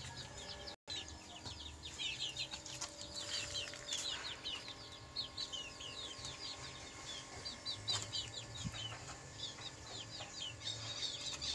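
Young chickens peeping: a steady stream of short, high, falling chirps, several a second.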